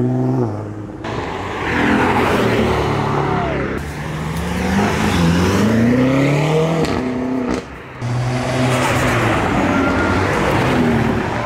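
A performance car's engine revving hard and accelerating away, its pitch climbing, falling back and climbing again over a loud rush of exhaust noise, with a brief dip in loudness near eight seconds.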